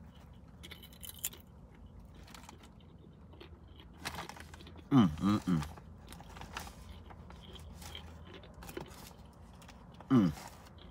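A person chewing crunchy nacho tortilla chips, with faint scattered crunches. Short vocal sounds falling in pitch come about five seconds in, twice in quick succession, and once more near the end; they are the loudest sounds.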